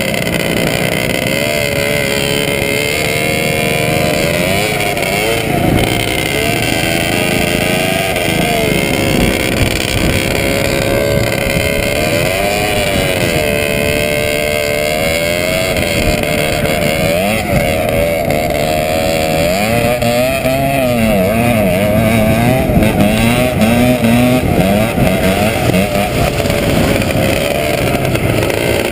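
ČZ 250 two-stroke motocross motorcycle engine running hard while towing a skier, its pitch rising and falling every second or two as the throttle opens and closes. From about two-thirds of the way through, a second, lower engine note wavers alongside it.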